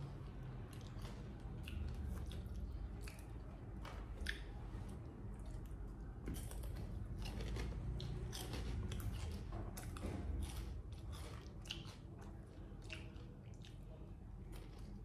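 Crisp potato chips being bitten and chewed, with many sharp, irregular crunches.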